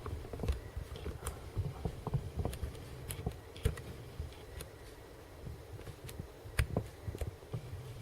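Irregular clicks and taps of a computer keyboard and mouse in use, a dozen or so sharp clicks spread unevenly over a steady low background.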